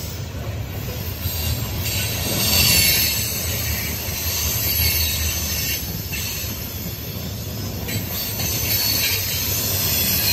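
CSX coal hopper cars rolling past on the track: a steady low rumble of steel wheels on rail under a high wheel squeal and hiss that swells about two to three seconds in.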